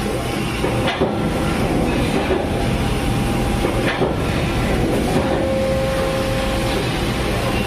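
Hydraulic machinery running with a steady, dense mechanical noise, with a sharp knock about a second in and another about four seconds in. A steady whine sounds for about a second and a half near the end.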